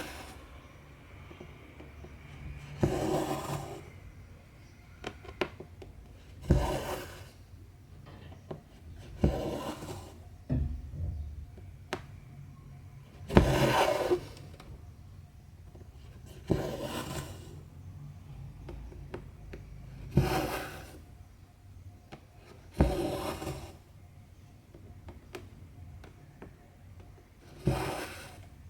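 Cotton embroidery thread being pulled through 14-count cross-stitch fabric, a rasping swish of about a second repeated roughly every three seconds. Small clicks of the needle on the cloth come in between.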